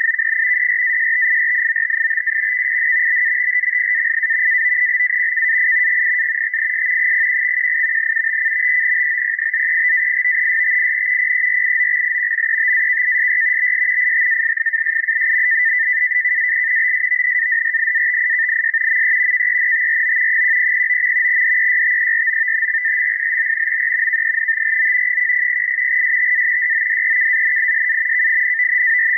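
NAVTEX radio-teletype signal received on shortwave: a steady, rapid two-tone warble of frequency-shift keyed data, carrying a marine weather forecast as it is decoded.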